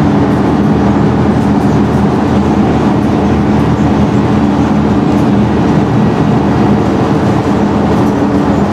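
Scania N113DRB double-decker bus's diesel engine running steadily under way, a continuous low drone with road noise, heard from inside the bus.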